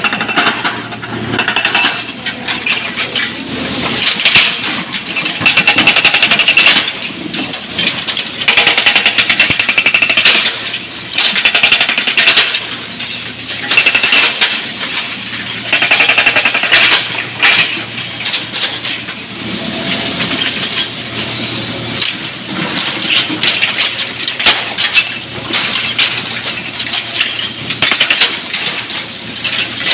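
Excavator loading quarry stone into a dump truck: rock clatters and rattles in loud bursts every few seconds as the bucket digs and tips, over the steady hum of the diesel engine.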